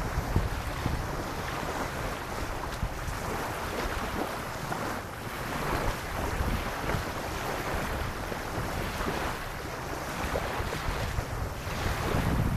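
Small waves lapping on sand in a steady wash, rising and falling gently a few times. Wind buffets the microphone with a low rumble.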